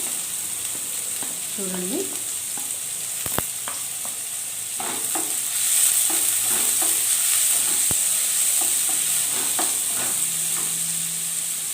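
Chopped onions, green chillies and curry leaves sizzling in hot oil in a pan while being stirred, with a spoon scraping and tapping against the pan. The sizzling gets louder about halfway through.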